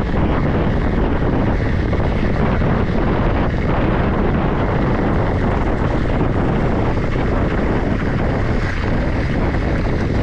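Steady wind rush buffeting a GoPro Hero 10's microphone on a moving mountain bike, mixed with the rumble of the bike's tyres rolling over gravel road.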